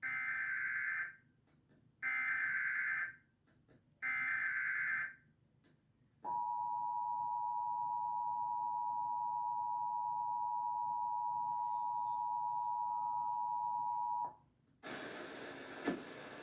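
Emergency Alert System test tones played over a TV: three raspy, screeching bursts of SAME header data about a second long each, then the steady two-tone attention signal held for about eight seconds before it cuts off sharply. A steady hiss follows near the end.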